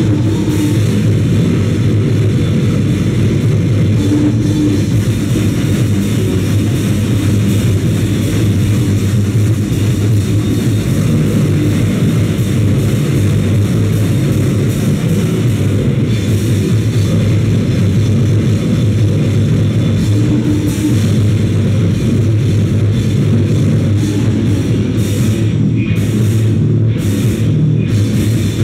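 A noisecore band playing live at full volume: heavily distorted guitar and bass in a dense wall of noise with drums pounding underneath. Over the last few seconds it breaks into separate hard drum and cymbal hits as the song ends.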